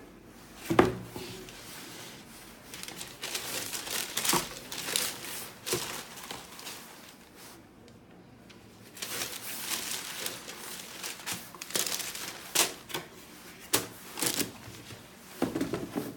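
Irregular rustling and crinkling of paper packaging being handled, with a sharp knock about a second in and a short lull in the middle.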